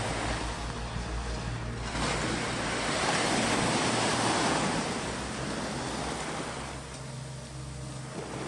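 Sea waves: a wave surges in about two seconds in, is loudest around the middle and washes back out near the end, over a steady low hum.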